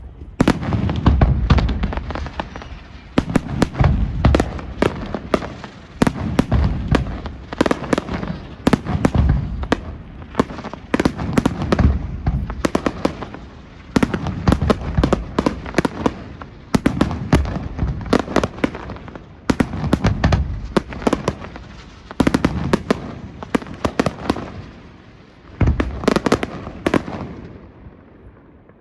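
Aerial fireworks display: a dense, continuous barrage of shell bursts, deep booms mixed with many sharp cracks, coming in clusters every second or two and easing slightly near the end.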